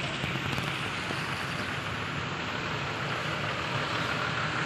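Cars and an SUV driving slowly over a wet road: a steady hiss of tyres on the wet surface mixed with engine noise.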